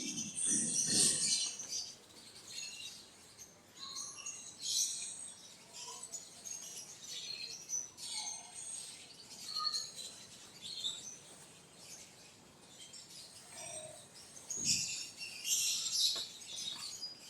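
Birds chirping in scattered short bursts of high calls, busiest near the start and again near the end, with a soft low thud shortly before the last burst.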